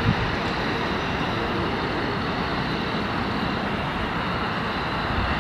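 A passing train: a steady rolling rumble with wheel and rail noise.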